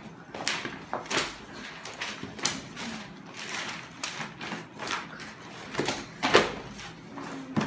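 Books and notebooks being grabbed, slapped down and tossed onto a floor: a run of irregular thuds and slaps with paper rustling between them, the loudest about six seconds in.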